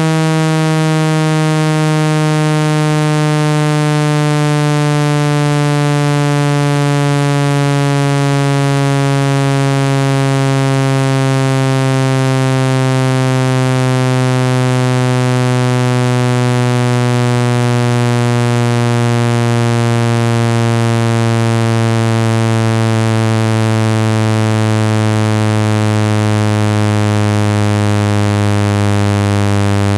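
Synthesized speaker-cleaning tone, meant to shake dust out of a phone speaker grille: a loud, buzzy low tone that glides slowly and evenly downward in pitch.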